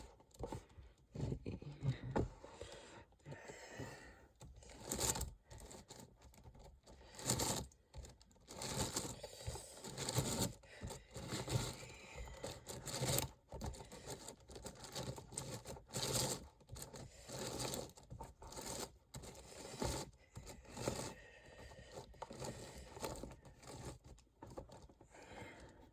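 Layers of a 29x29 Rubik's cube being turned by hand, its many small plastic pieces scraping in short, irregular bursts.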